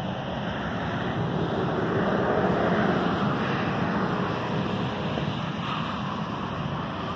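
Wind buffeting the microphone, with road traffic passing whose rushing noise swells about two to three seconds in and then fades.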